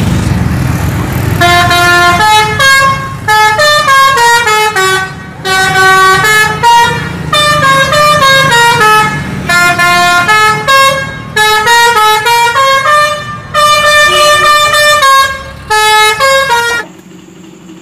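A tour bus's multi-tone musical "telolet" horn playing a tune of quick stepping notes in short phrases over the bus's running engine. The horn starts about a second and a half in and stops shortly before the end.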